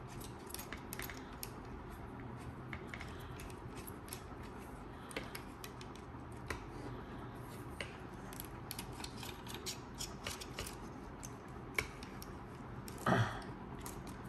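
Small, irregular clicks and taps of metal vlogging mount parts being handled and their thumbscrews turned, over a faint steady hum. A louder thump comes near the end.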